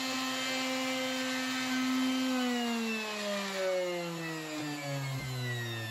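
Skil plunge router running at a steady whine while routing out a recess. A little over two seconds in it is switched off and its motor winds down, the whine falling steadily in pitch.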